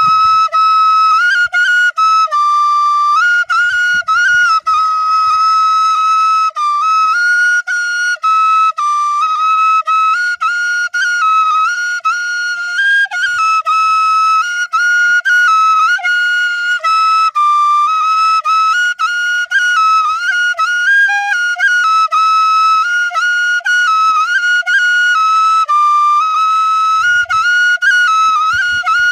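Bansuri (bamboo flute) playing a continuous high melody that stays within a narrow range, with quick ornamental turns and short breaks between phrases.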